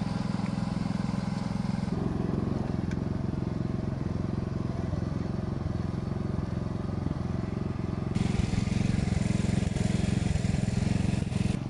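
Walk-behind rice transplanter's engine running steadily as the machine plants seedlings in a flooded paddy. The sound jumps abruptly twice.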